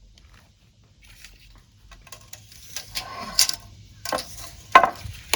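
Light clicks and clattering knocks from handling lumber and hand tools, sparse at first and louder and busier in the second half, with a few sharp knocks near the end.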